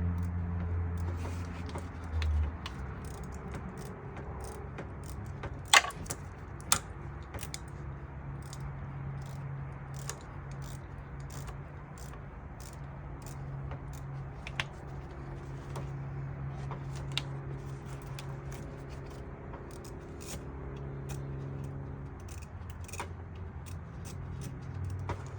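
Scattered metallic clicks and clinks of a socket wrench on an extension working at an engine-bay hose clamp, over a steady low hum.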